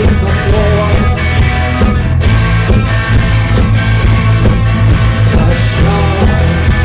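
Rock band playing a song, with drums keeping a steady beat under bass and electric guitar.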